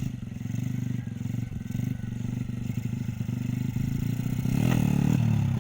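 Honda C70 motorcycle's small single-cylinder four-stroke engine running steadily with a fast, even pulse, rising briefly in level about five seconds in.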